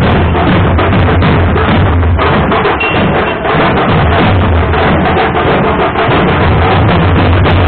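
Loud, fast and continuous drumming, with dense strikes over a heavy low boom.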